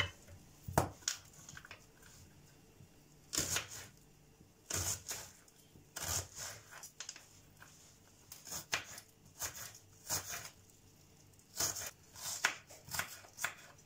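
Kitchen knife slicing onions on a wooden cutting board: irregular sharp knocks of the blade against the board, singly and in small clusters, with short pauses between.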